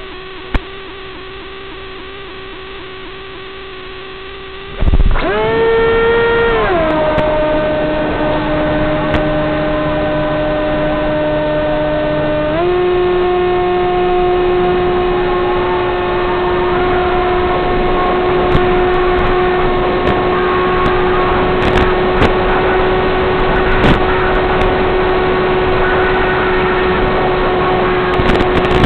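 Electric motor and propeller of a Z84 flying wing. About five seconds in it spools up suddenly and loud for the launch, drops to a lower whine within a couple of seconds, then steps up slightly and holds a steady cruise whine under rushing wind noise.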